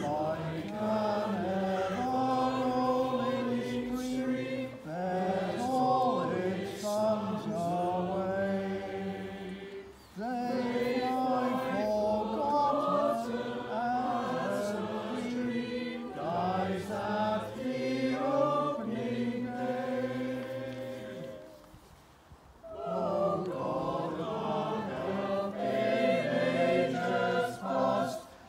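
Church choir singing in three phrases, with a short break about ten seconds in and a longer pause a little past twenty seconds.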